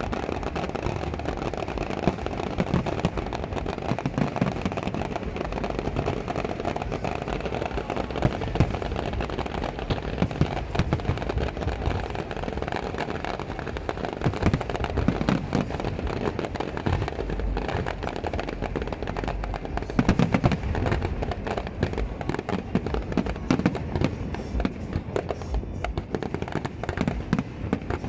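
Aerial fireworks display: a dense, unbroken run of shell bursts and crackling, with sharp bangs coming many times a second and a cluster of louder bangs about twenty seconds in.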